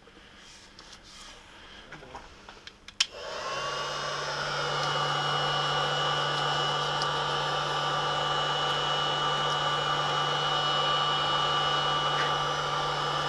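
A hot-air blower clicks on about three seconds in. Its fan spins up and then runs steadily with a whining tone, warming vinyl wrap film so it goes soft and takes the shape of the stock. Before it starts there is only faint handling of the film.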